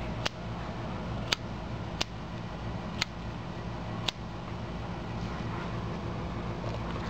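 Small sharp clicks, five in the first four seconds at about one a second, from hands handling a plastic Samsung SMX-F40BN camcorder, over a steady low hum.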